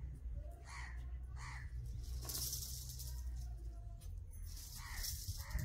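Crow cawing: two short caws about a second in and two more near the end. Between them come a few brief hissing noises over a low steady rumble.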